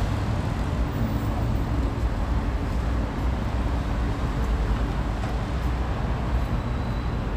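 Steady road traffic noise: the continuous rumble of cars passing on the road in front of Seoul Station.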